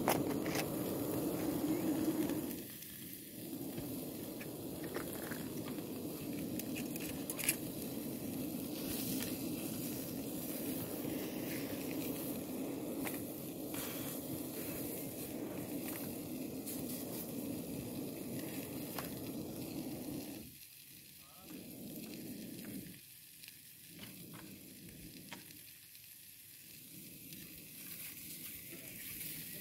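Food sizzling in a pan on a portable gas camping stove, over the steady rush of the burner, with scattered small clicks and crackles. The steady sound drops away briefly a few times in the second half.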